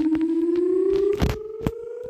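Emergency alert siren wail, one tone rising slowly and steadily in pitch as it winds up. Two sharp knocks sound over it near the end.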